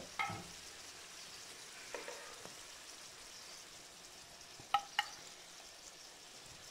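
Faint sizzle of mini aloo parathas shallow-frying in oil in a non-stick pan. A few light, ringing clinks from a slotted spatula against the pan and plate break in, the loudest two in quick succession about five seconds in.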